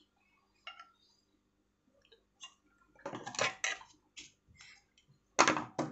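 Small clicks, taps and rustles of hands threading a coverstitch sewing machine: metal tweezers knocking against the needle area and thread being pulled. They come scattered, with a cluster about three seconds in and the loudest ones near the end.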